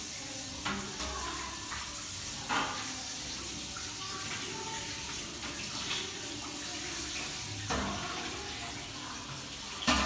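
Kitchen tap running steadily into a sink during dishwashing, with a few sharp clinks of dishes.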